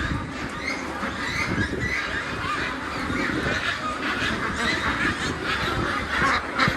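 A large flock of ducks quacking, many overlapping calls at once at a steady level.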